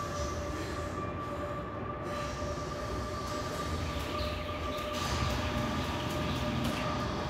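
Jump rope doing double-unders: the rope whips round and ticks against the gym floor several times a second, starting about four seconds in, over a steady low hum.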